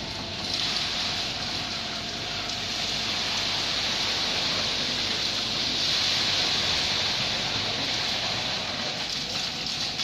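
Steady rushing hiss and rumble of a concrete pump truck running during a concrete pour, with no clear beat.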